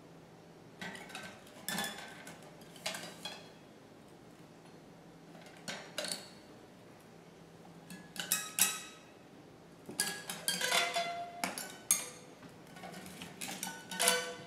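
Two combined guitars laid flat, their strings struck and scraped with a small hand-held object: irregular clusters of metallic clicks and clinks, each leaving short ringing string tones, with a quiet gap of about two seconds in the first half and busier clusters in the second half.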